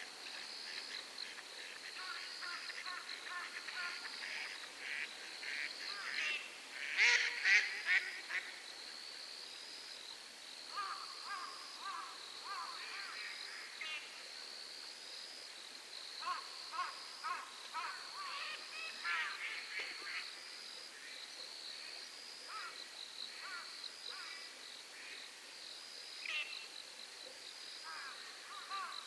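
Night lakeside chorus: an insect chirps in a steady pulse about once a second, frogs call in short rapid runs, and a bird gives a loud harsh screech about seven seconds in.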